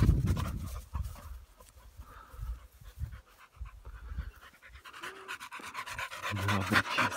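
American Staffordshire terrier panting quickly and rhythmically after running, the panting growing louder in the last couple of seconds as the dog comes close. A low rumble fills the first second.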